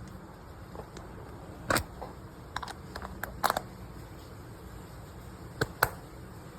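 A handful of sharp clicks and taps, the loudest about two seconds in, another near the middle and a pair near the end, over a low steady hum.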